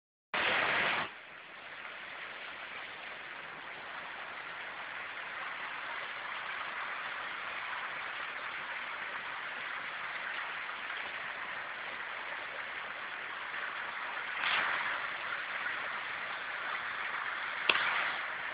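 Steady splashing of pool fountain jets and wall water spouts, growing slowly louder. A short louder rush opens it, and there is a single click near the end.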